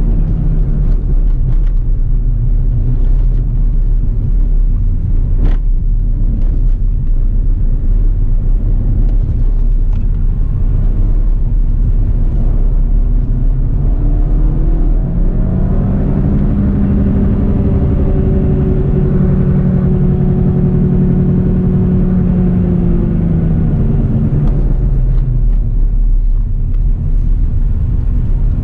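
Suzuki Swift Sport's 1.4-litre turbocharged four-cylinder engine heard from inside the cabin while driven hard: the engine note climbs in pitch around the middle, holds high for several seconds, then drops back, over a steady low road and wind rumble.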